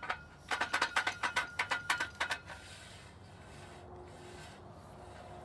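A part rattling and knocking as it slides down inside a patio umbrella's metal pole: a quick run of clicks over a light ringing tone for about two seconds, then it stops.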